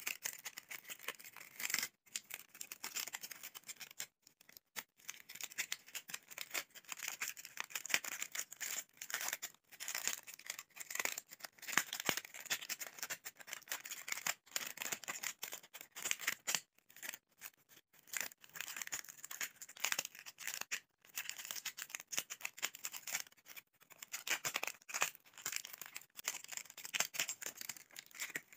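Thin plastic of a green 7 Up mini bottle crinkling and crackling as it is squeezed, bent and folded by hand, in a steady run of small crackles with brief pauses.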